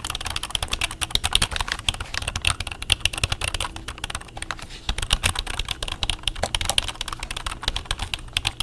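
Fast, continuous typing on a computer keyboard: a dense, irregular run of key clicks.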